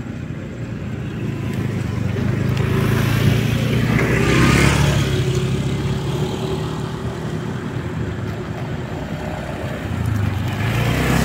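A motor vehicle passing by: engine and tyre noise swell to a peak about four to five seconds in, then fade. Another vehicle approaches near the end.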